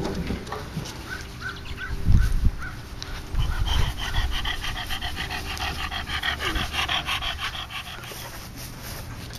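Tosa Inu puppies panting fast and evenly, with short high whimper-like squeaks starting about a second in. A couple of low thumps come about two seconds in.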